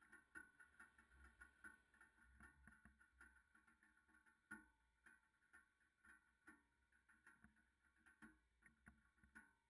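Near silence, with faint irregular ticks and clicks and one slightly stronger click about halfway through.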